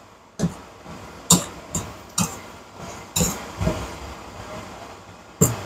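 Spatula knocking and scraping against a wok while stir-frying vegetables: about seven irregular clacks over a faint steady hiss.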